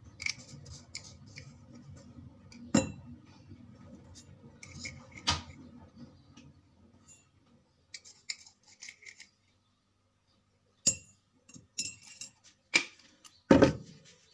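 Household clatter: scattered clinks and light knocks of dishes and utensils being handled, with a few louder knocks, the loudest near the end.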